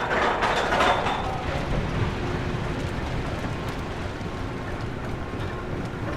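Roller coaster train rattling along its track: a loud burst of clatter about a second long at the start, then a steady low rumble.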